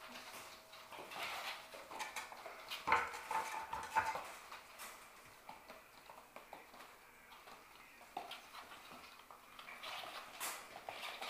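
Six-week-old Sheltie puppies playing: a couple of short, high yips about three and four seconds in, among scattered light clicks and clatter.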